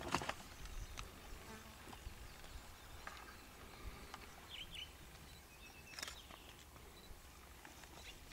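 Male leopard feeding on a kudu carcass: faint chewing and tearing with a few sharp cracks, the loudest right at the start and about six seconds in.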